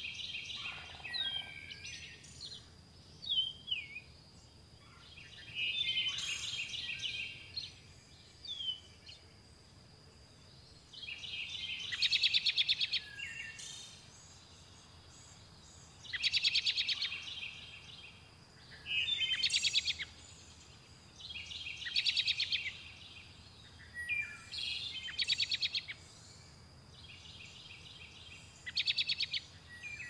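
Songbirds singing: about ten short, rapid trilled phrases, high-pitched, repeating every two to three seconds. A thin, steady high tone runs faintly underneath.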